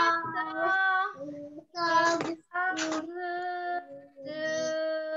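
A woman and young children singing a song together, in short phrases of held notes with brief breaks between them.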